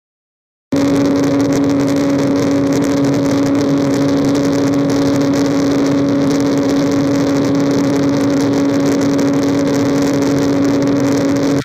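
Sonified pressure-sensor signal from a cavitation test, played back raw and unfiltered through a computer speaker: a steady tone with its overtone, from the dominant synchronous and harmonic components, over a dense hiss. It starts abruptly a little under a second in and stays steady and loud.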